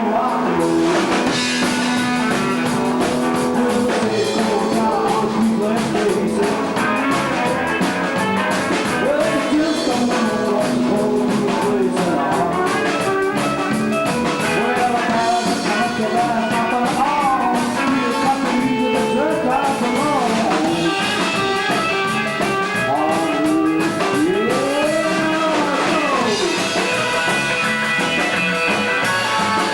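Rock and roll band playing live: singing over electric guitar and drums.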